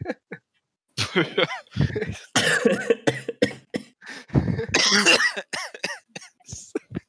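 A person coughing repeatedly, a run of harsh coughs and throat noises starting about a second in, heard over a voice-chat connection.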